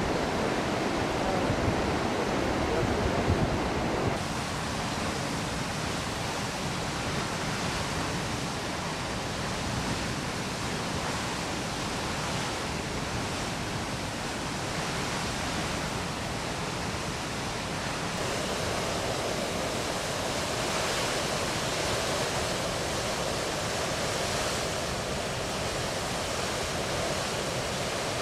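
Floodwater pouring over a concrete dam spillway and churning out of the dam's outlet gates: a steady, heavy rush of water. Its low, deep part thins out about four seconds in.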